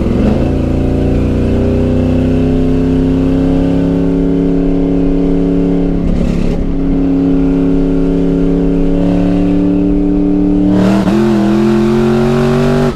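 Supercharged, cammed V8 of a Camaro ZL1 running with its exhaust diverters open, straight off the headers with no mufflers, heard loud from inside the cabin with the windows down. The engine note climbs steadily as the car accelerates, breaks briefly about six seconds in, and dips and climbs again about eleven seconds in.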